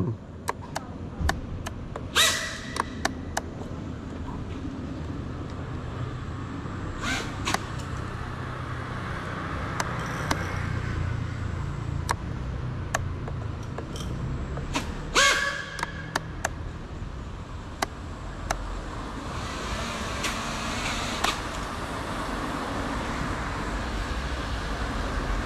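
Steady low outdoor background rumble, like distant traffic, with scattered sharp clicks and a few short louder noises about two, seven and fifteen seconds in.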